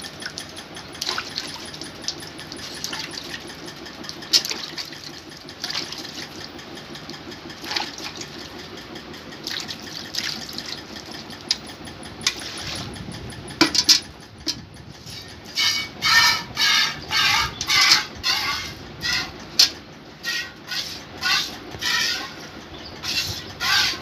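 Hand-milking a cow into a steel bucket: squirts of milk striking the bucket, scattered and irregular at first, then settling into a steady rhythm of about two squirts a second with a metallic ring from the bucket.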